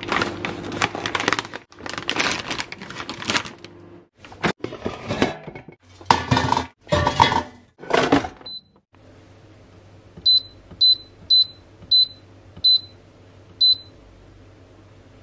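Scissors cutting through a cardboard fish-fillet box and the box and an air fryer being handled: irregular crackling and knocking for the first several seconds, ending in a single short beep. Then the digital air fryer's touch panel beeps six times in quick succession as the timer is set, over a low steady hum.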